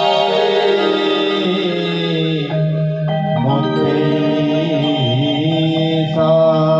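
Live Sambalpuri folk music: a male singer holding long notes into a microphone, sliding from one pitch to the next a few times, over a steady low drone.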